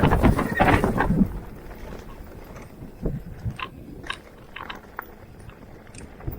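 Mountain bike riding over a dirt trail: loud crunching of tyres and gear for about the first second, then quieter with scattered short clicks and rattles.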